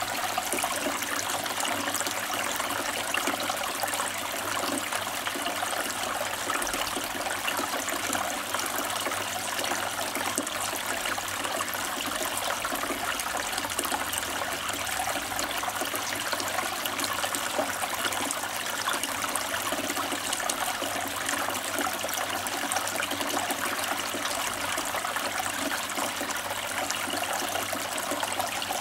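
Water trickling and splashing steadily down the tiers of a Kelkay Easy Fountain Walnut Cascade, a tree-stump-shaped cascade water feature, and falling into its pool.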